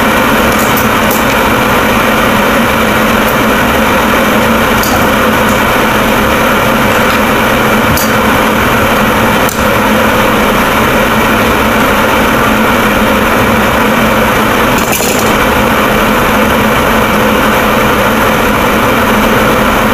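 Steady, loud whirring of a small motor, with a few light clicks and taps at odd moments.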